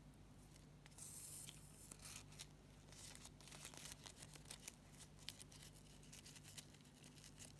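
Faint rustling of satin ribbon handled and hand-sewn with needle and thread, with a short hiss about a second in and small scattered clicks after, over a low steady hum.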